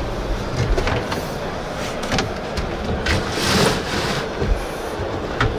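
Steady exhibition-hall crowd hubbub heard from inside a truck cab, with a few light clicks and knocks as an overhead cab storage locker is handled and opened. A brief rushing noise rises and fades around three seconds in.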